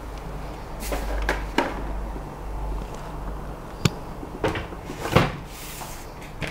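Handling knocks and clunks as a Creality LD-002H resin 3D printer is lifted and set down on a metal baking sheet, the loudest clunk about five seconds in as it lands on the tray.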